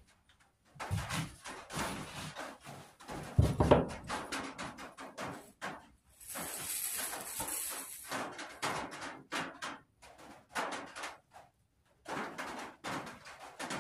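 Fiberglass drywall tape being pulled off the roll and pressed by hand along a glued wooden bow stave: irregular rustles and light taps, with a loud thump about four seconds in and a longer rustle of tape about six to eight seconds in.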